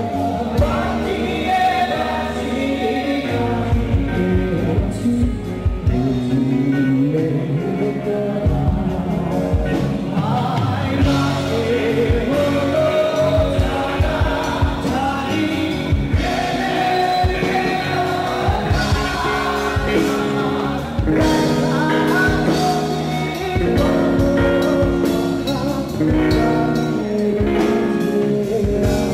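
Live band playing a song with a singer and a drum beat, the drums coming in a few seconds in.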